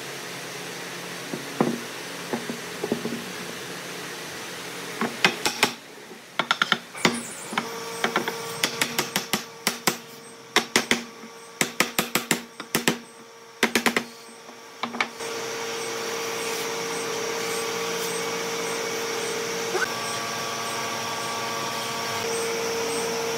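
A block-shaped wooden mallet knocking a pine crossbeam down into the notches of curved table legs: a rapid, uneven run of sharp knocks from about five seconds in until about fifteen seconds in. After that a steady machine drone with a held tone takes over and runs on.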